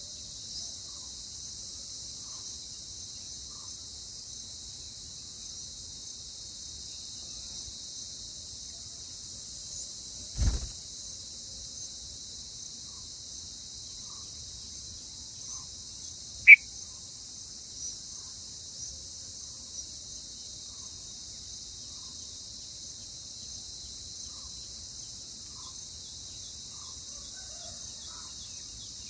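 Steady, high-pitched insect chorus. About ten seconds in there is a dull thump, and around sixteen seconds in a single short, sharp chirp, the loudest sound.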